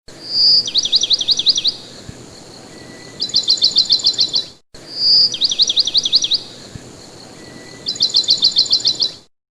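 A songbird singing: a short whistled note, a run of quick down-slurred notes, then after a pause a faster, higher trill. The same song phrase is heard twice.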